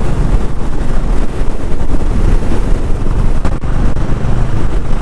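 Strong wind blasting over the microphone of a moving motorcycle in a heavy crosswind, with the low, steady hum of the Honda H'ness CB350's single-cylinder engine underneath. A brief knock sounds about three and a half seconds in.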